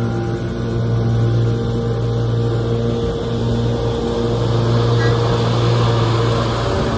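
Riding lawn mower engine running steadily under mowing load, a constant low hum.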